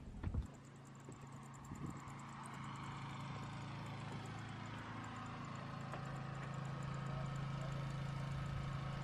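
Steady low mechanical hum, like a running motor, growing a little louder about halfway through, with a sharp knock right at the start.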